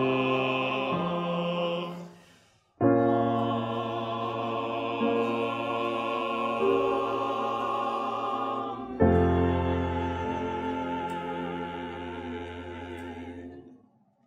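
Choir singing a slow Hebrew liturgical song with piano accompaniment. The phrase breaks off about two seconds in and starts again a moment later, and a final held chord fades out near the end.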